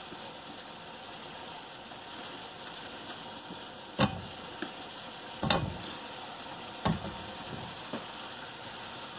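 Pork belly and vegetables simmering and sizzling quietly in a wok, with three sharp knocks about four, five and a half and seven seconds in, and two lighter ones, as pieces of squash are dropped into the pan.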